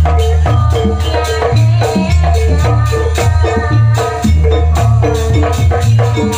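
Jaranan gamelan ensemble playing a Banyuwangi-style piece: kendang barrel drums, bronze pot gongs and metallophones struck in a steady, dense rhythm over deep drum and gong notes.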